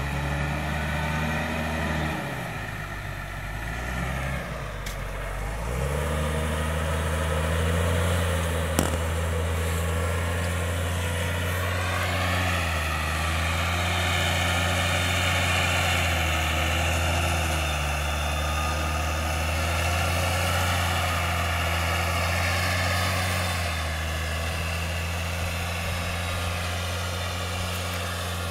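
Farm tractor's diesel engine running under load as it pulls a duck-foot cultivator through the soil. The engine note drops about two seconds in and picks back up around six seconds, then runs steadily.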